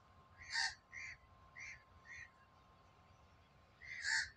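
Bird calls in the background: five short calls, the loudest about half a second in and another near the end, with quieter ones between, over a faint steady high tone.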